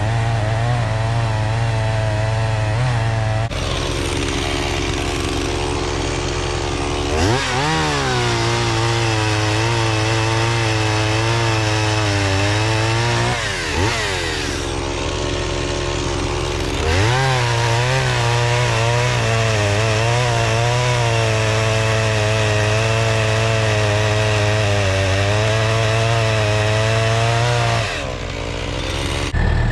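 Chainsaw running at high revs while cutting firewood, its pitch dropping off around 4 s, briefly near 14 s and again near 28 s, and revving back up quickly around 7 s and 17 s.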